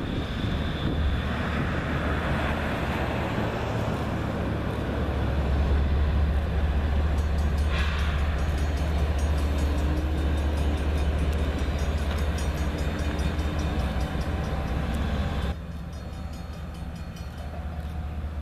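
Norfolk Southern GE ES44AC diesel locomotive creeping past at close range, its engine a steady deep drone, with a short higher hiss about eight seconds in. Near the end the sound drops abruptly to the quieter engine of the same locomotive further off.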